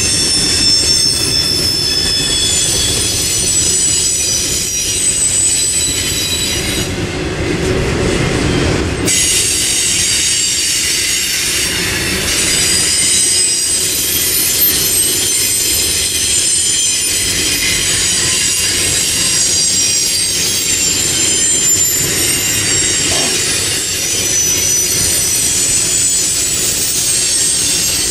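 Double-stack intermodal freight train rolling past, its steel wheels on the rails giving a steady rumble with a chorus of high-pitched squeals that shift and overlap.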